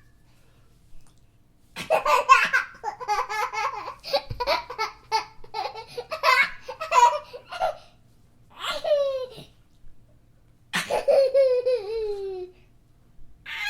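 A young child laughing hard in long fits: a run of quick, high, breathy bursts, a pause, one squeal that falls in pitch, then another fit whose pitch slides down as it trails off.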